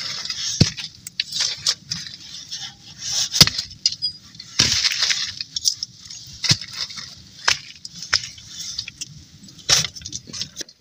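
Firewood being split with a hatchet and handled: a series of irregular sharp chops and cracks of wood, about half a dozen loud ones, with rustling and crackle between them.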